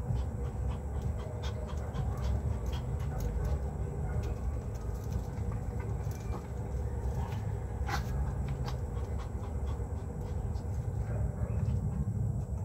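Two dogs playing and scrambling over a person, with dog sounds, scuffling and many small clicks. A sharper knock comes about eight seconds in.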